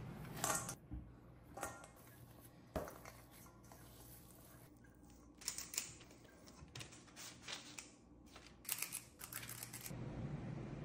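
Kitchen handling sounds: scattered short scrapes and clicks of utensils and food being worked, a few at a time with pauses between, over a low steady hum.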